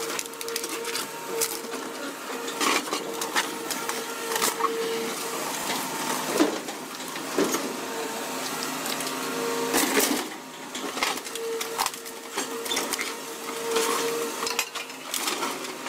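Scrap-yard material handler working an orange-peel grapple into a car: a steady machine whine that starts and stops several times, with a few sharp crunches and creaks of sheet metal.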